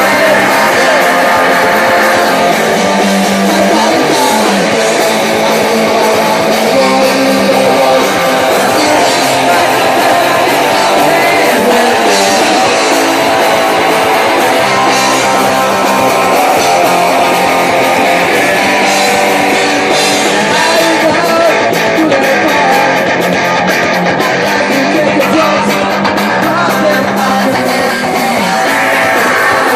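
Hardcore punk band playing live: loud distorted electric guitars, bass and drums, with singing.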